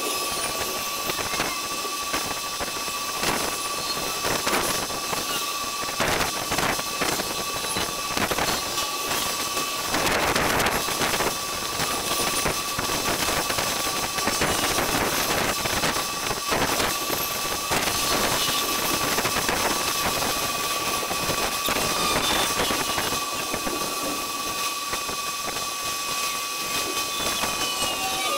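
Thunderstorm sound sped up twentyfold: wind and rain squeezed into a steady hiss full of brief crackles, with a thin steady tone running underneath and a louder surge about ten seconds in.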